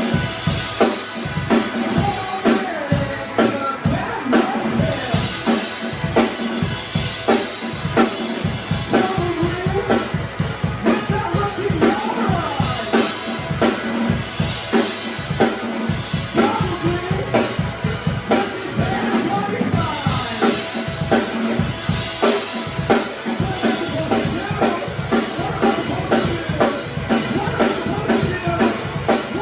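A live band playing a song, with a drum kit keeping a steady beat of bass drum and snare under a pitched melody line.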